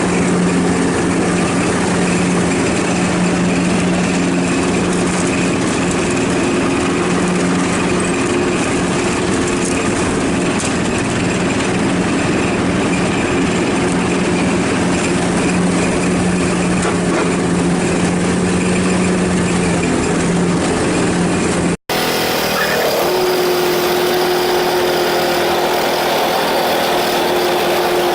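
Ride-on lawnmower engine running steadily. About 22 seconds in, a split-second dropout breaks the sound, and the engine carries on with a higher steady hum.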